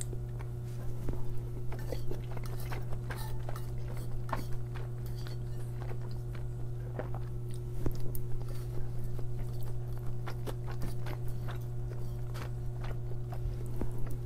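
Close-miked eating sounds: a person chewing and smacking on mouthfuls of soft bacon cheeseburger rice, with short clicks of a fork against the plate and mouth. A steady low hum runs underneath.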